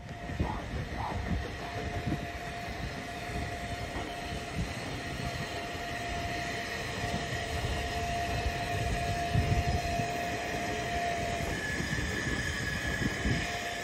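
Narrow-gauge steam train moving slowly through the station: a steady low rumble with a long, even, high squeal, which gives way near the end to a higher squeal.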